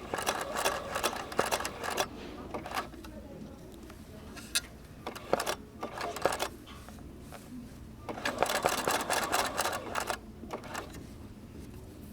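Bernina sewing machine stitching in short runs of rapid needle strokes, stopping and starting several times with pauses in between, the longest run about eight seconds in.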